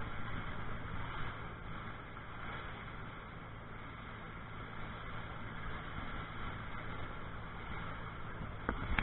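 Small fishing boat under way: its engine running with a steady low drone, mixed with wind and rushing water.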